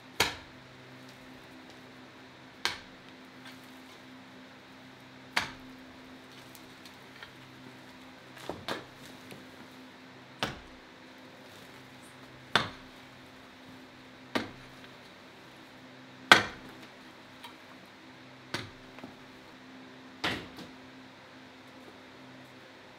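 Long-handled digging tool striking rock about every two seconds, ten sharp hits in all, each with a short ringing tail, over a steady low hum.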